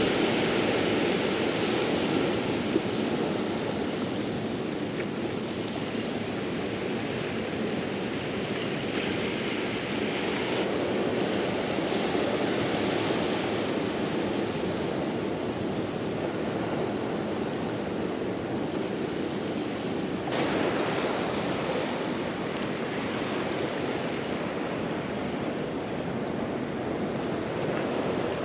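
Steady wash of ocean surf on a rocky shore, with some wind on the microphone.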